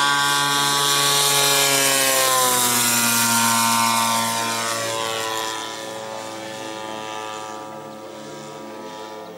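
DLE 60cc twin-cylinder petrol engine on a large radio-controlled Extra 330 aerobatic plane, its propeller buzzing on a low pass. It is loud and its pitch drops as it goes by, then it fades about five seconds in as the plane climbs away.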